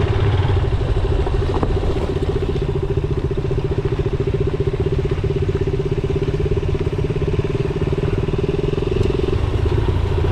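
Motorcycle engine running steadily at an even, low pitch, with only a slight change about nine seconds in.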